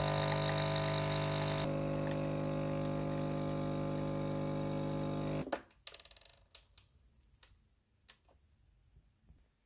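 Nespresso capsule machine's pump buzzing steadily while it brews coffee into the cup. It stops abruptly about five and a half seconds in, and a few faint clicks follow.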